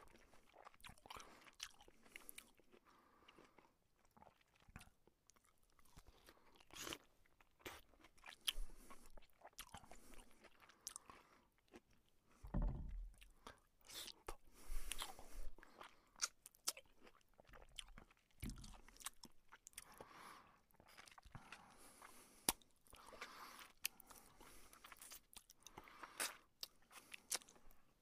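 A person eating noisily with the mouth open: crunching, wet smacking chewing and irregular sharp mouth clicks, with a few longer slurping bursts, an ill-mannered way of eating.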